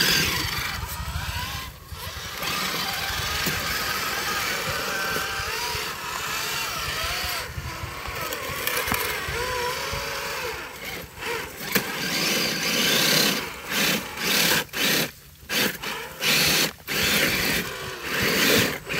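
Electric motor and geared drivetrain of a radio-controlled crawler truck whining as it crawls through mud, the pitch rising and falling with the throttle. In the second half the throttle comes in short bursts with brief pauses between them.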